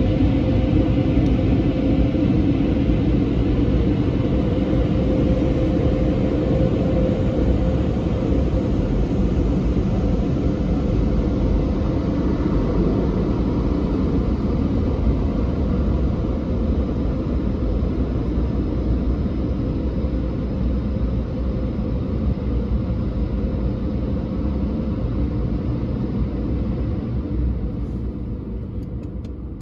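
Drive-through car wash machine running over the car, heard from inside the cabin: a steady low rumble with a faint steady hum. It slowly quietens through the second half and fades near the end.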